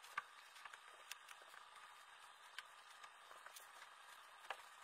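Faint rustling of a bedsheet being smoothed and tucked over a mattress, with scattered light clicks and taps.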